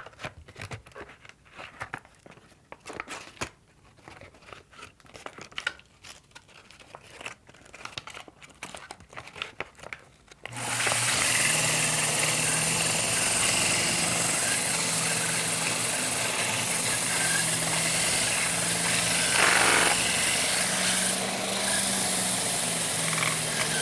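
Sandpaper handled and rubbed with short scratchy crinkles, then about ten seconds in the rod-building lathe's motor starts and the cork ring handle spins against the sandpaper: a steady sanding hiss over a low motor hum while the grip is rough-shaped with coarse grit.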